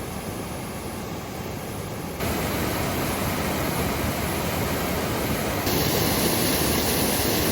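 Steady rushing of a large 80-metre waterfall in full flow, an even noise that grows louder in two sudden steps, about two seconds in and again near the end.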